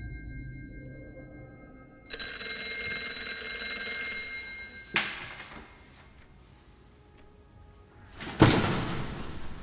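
Mobile phone ringtone: a ring of steady, chime-like tones, a short pause, then another ring that cuts off with a click about five seconds in as the call is answered. A loud thump comes near the end.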